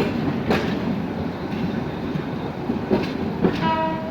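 Kalni Express passenger train rolling out of the station, its wheels clacking over rail joints amid a steady rumble. A short horn note sounds near the end.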